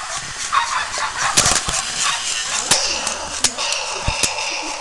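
Plastic toys being handled close to the microphone: a run of sharp knocks and clicks, about six in all, with a faint high steady tone in the second half.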